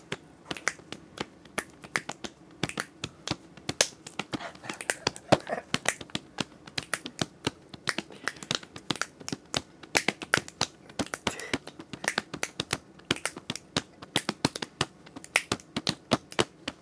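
Body percussion by several people: hand claps and slaps on chest and legs, a quick, busy run of sharp hits, several a second, played as a beat.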